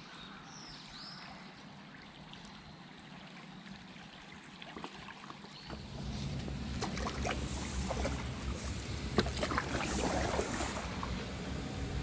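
Stand-up paddleboard paddle strokes in river water: quiet gurgling at first, then from about halfway the paddle dips and splashes with sharp clicks and drips, over a low rumble.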